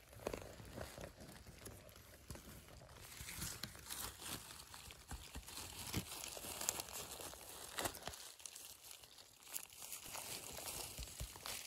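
Footsteps crunching through dry leaf litter and twigs on a forest floor, with irregular rustling and crackling throughout.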